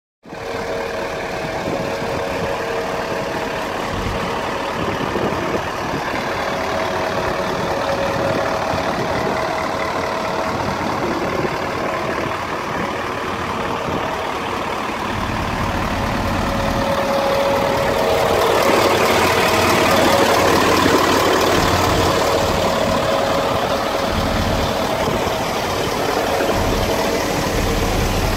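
Mercedes-Benz Actros 3358's V8 diesel engine idling steadily.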